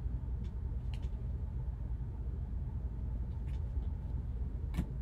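Steady low background hum with a few faint clicks of plastic card holders being handled, the clearest click near the end.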